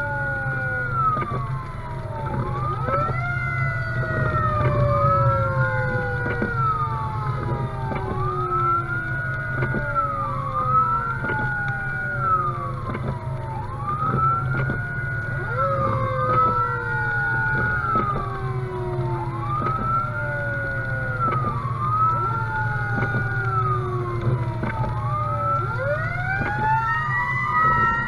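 Fire engine siren wailing while the truck drives. Each cycle climbs quickly to a held high tone, then slides down, about every two seconds, with falling tones overlapping. The truck's engine hums steadily underneath, and near the end the siren climbs higher.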